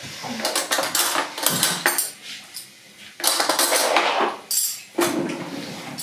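Dishes and cutlery clattering off-screen: a run of clinks, knocks and scrapes in several clusters, with a short lull about halfway.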